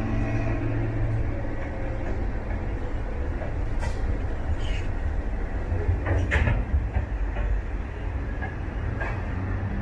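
Freight train rolling past close by: wagon wheels rumbling steadily on the rails. The diesel locomotive's engine drone fades in the first second as it pulls away. Two brief sharp sounds from the wheels come about four and six seconds in.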